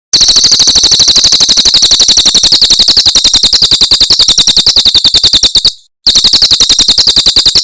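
Cililin bird song, a rapid, even trill of high chirping notes at about ten a second, played loud as a masteran training recording; it breaks off briefly about six seconds in and resumes.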